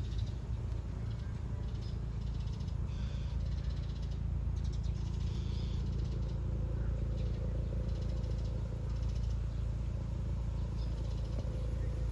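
Outdoor ambience: a steady low rumble, with short spells of high twittering from small birds coming and going every second or two.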